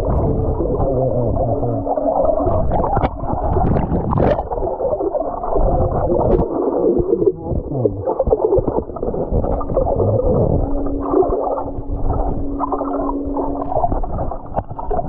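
Muffled underwater sound of swimming-pool water moving and churning, with a steady low hum that comes and goes and a few sharp clicks.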